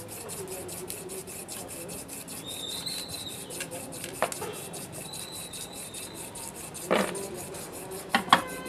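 Metal parts of an aluminium engine oil pump housing being handled and taken apart: steady scraping and rubbing, with a few sharp clicks, the loudest about seven seconds in and two quick ones just before the end.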